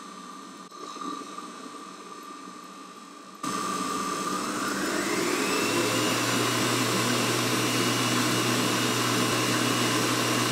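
Stand mixer whisking whipped cream as condensed milk is added. It runs quietly at first, gets much louder suddenly about three and a half seconds in, then its motor whine rises in pitch as the speed dial is turned up and holds steady at high speed.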